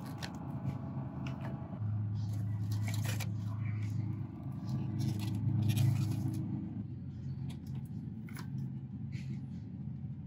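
Plastic food packages crinkling and tapping as they are picked off a shelf and dropped into a plastic shopping basket, with a run of rustles and clicks in the middle, over a steady low background hum.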